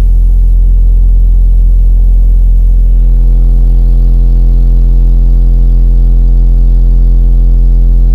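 American Bass DX-10 10-inch subwoofer, mounted inverted in an old Infinity home-audio sub box, playing a 43 Hz test tone at full volume: a loud, steady deep hum with a buzzy edge that changes about three seconds in.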